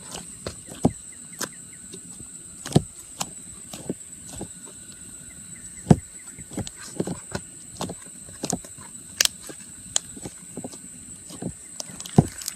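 A large batch of slime being handled, giving off irregular sticky pops and clicks, a few of them sharper and louder.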